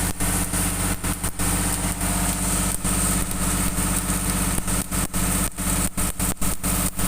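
Komatsu D85ESS bulldozer's diesel engine running steadily. The sound drops out for split seconds many times.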